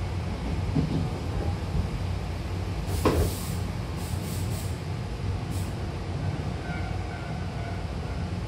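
Hankyu electric train running, heard from inside the passenger car: a steady low rumble of wheels on rail and running gear. About three seconds in there is one sharp knock, followed by a few short hisses.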